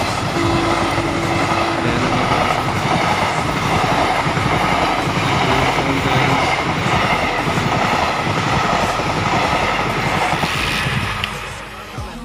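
Passenger train coaches rolling past close by, their wheels clattering steadily over the rails, the noise dropping away near the end as the train clears.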